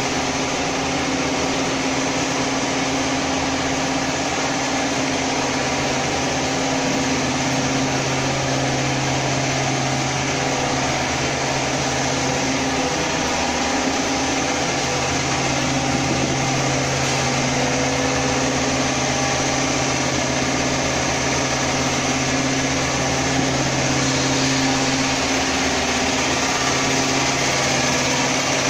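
Food-processing machinery running steadily: a constant motor hum under a strong, even hiss.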